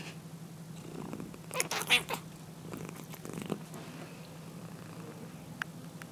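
Domestic cat snoring in its sleep: a steady low rumble, with a louder noisy breath about one and a half seconds in and a softer one a couple of seconds later.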